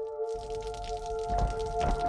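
Background music of long held notes with scattered soft clicks, a deeper low layer coming in about two thirds of the way through.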